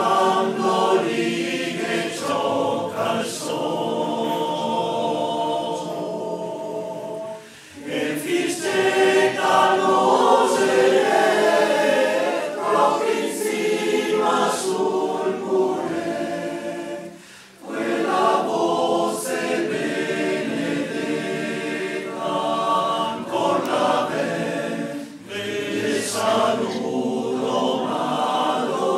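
Male-voice choir singing a cappella in harmony, the phrases breaking off briefly about seven and seventeen seconds in.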